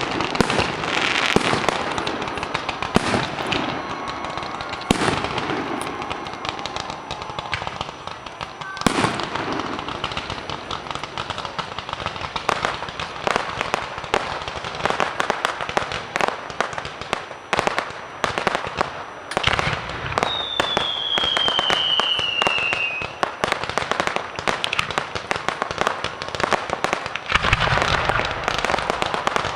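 Fireworks display going off: a continuous barrage of bangs and crackling, with heavier booms now and then. About two-thirds of the way through, one long whistle falls in pitch.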